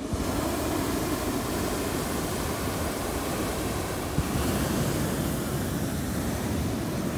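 Hot-air balloon propane burner firing: a long steady roaring blast that starts suddenly and cuts off about seven seconds later.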